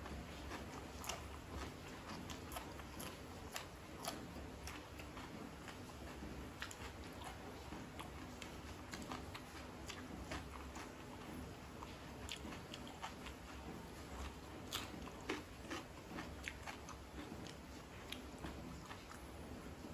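Close-miked mouth sounds of a person eating with his hands: steady chewing with irregular crisp crunches and wet clicks as raw long green chili and rice are bitten and chewed.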